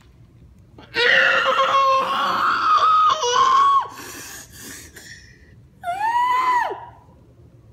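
A young person screaming: a long, high-pitched scream held for about three seconds from about a second in, a few rustling sounds, then a shorter yell near six seconds that rises and falls. It is a cry of dismay at finding the new hoverboard cracked.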